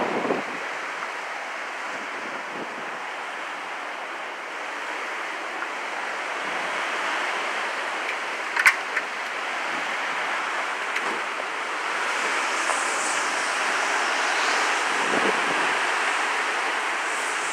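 Hurricane wind and rain blowing around a screened pool enclosure and trees. It makes a steady noise that grows louder in gusts from about halfway on, with one sharp click a little past the middle.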